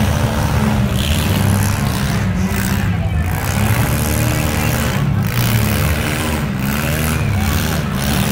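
Engines of several compact demolition-derby cars running and revving together, their overlapping pitches rising and falling steadily.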